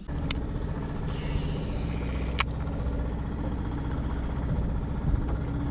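A small boat's outboard motor running steadily at low speed, a low even hum, with two brief sharp clicks near the start and about halfway through.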